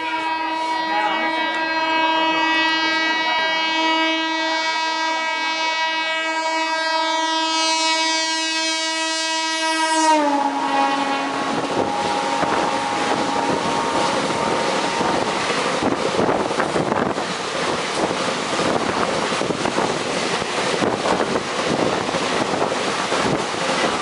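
Twin WAM4 electric locomotives' horn sounding one long continuous blast as the container freight approaches. About ten seconds in, the note drops in pitch as the locomotives pass close by, then fades out. The rest is the rushing rattle of container wagons speeding past alongside.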